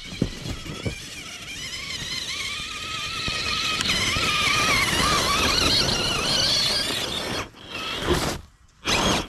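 Electric motor and gear whine of a large-scale RC crawler truck driving through snow, a wavering whine that grows louder and rises in pitch as it comes close, with two short cut-outs near the end as the throttle is let off.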